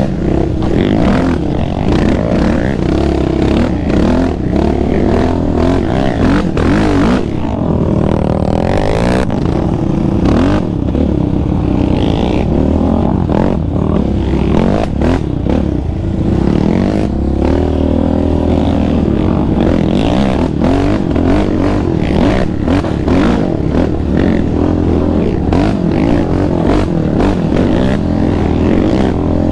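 The 686 cc single-cylinder four-stroke engine of a Yamaha Raptor 700R sport ATV is being ridden hard, its revs rising and falling continually as the rider works the throttle. Short clatters and knocks are heard throughout.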